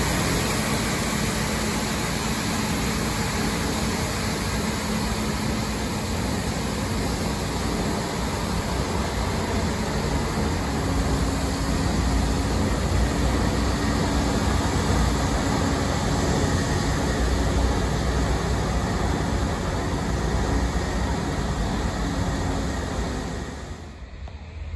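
A rail wash train passing: its diesel-powered generator runs and high-pressure water jets hiss onto the rail heads to clean off leaf residue, over the rolling of the cars on the track. The sound is steady, then falls away sharply near the end.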